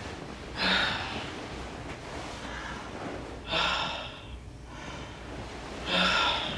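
A man's heavy, gasping breaths: three loud, rasping breaths about two and a half seconds apart.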